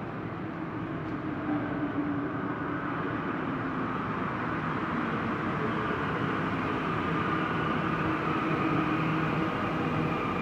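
A Santiago Metro NS16 rubber-tyred train pulls into the station. Its running noise grows steadily louder as it approaches and passes along the platform.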